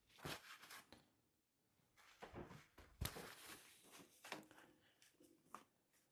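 Quiet handling at a wire soap cutter: short bits of rubbing and scraping, with one sharp knock about three seconds in.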